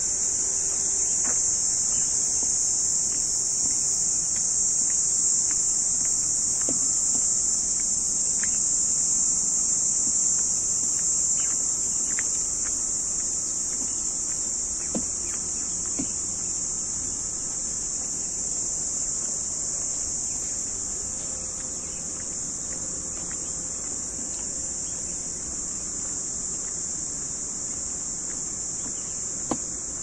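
A dense insect chorus: one steady, high-pitched shrill that never breaks or changes, with a few faint taps beneath it.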